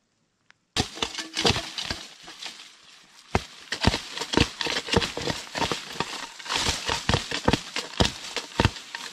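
Leafy brush shaken and thrashed by hand, starting about a second in: a dense, irregular run of branches cracking and snapping over rustling leaves. It is a hunter's imitation of a bull moose raking its antlers in the brush.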